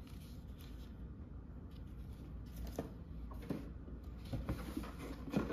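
Soft handling noises of a ribbon being pulled off a cardboard gift box and the box being lifted and moved, with faint rustles and a few light knocks, about three seconds in and again near the end, over a low room hum.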